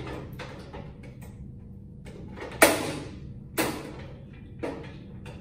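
Parts and wiring being handled inside a sheet-metal fluorescent troffer: small clicks, then three sharp knocks about a second apart, the first, a little over two and a half seconds in, the loudest.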